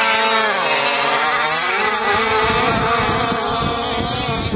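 Several two-stroke petrol engines of large-scale RC cars (46cc and 50cc class) running hard together at high revs, their notes overlapping. Their pitch sinks over the first second or so and then holds steady.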